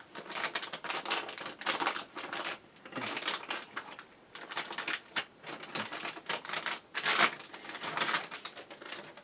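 Irregular bursts of rapid clicking and rattling as a PC network card with its metal bracket is handled and fitted against the computer case.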